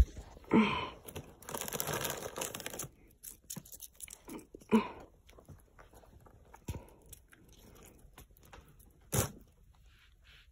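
Cat crunching and chewing Cheez-It crackers close to the microphone: a dense crackling stretch about a second and a half in, then scattered crunchy clicks, with a few short louder sounds near the start, the middle and the end.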